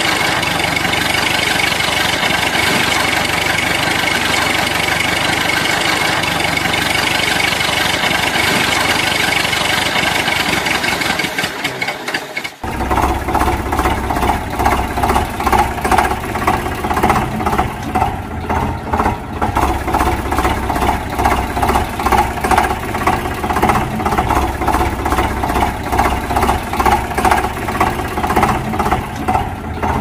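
A tractor engine runs steadily. After an abrupt cut about twelve seconds in, it is replaced by a chugging engine with an even, rapid pulse.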